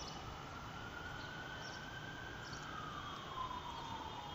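Faint wail of a siren: one long tone that climbs a little, then slowly falls away over a few seconds, above low room noise.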